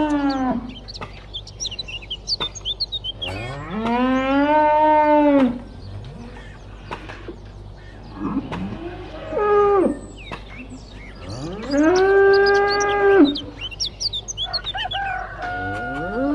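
Cows mooing: a series of long, drawn-out moos a few seconds apart, some rising and then falling in pitch, with short bird chirps in the gaps between them.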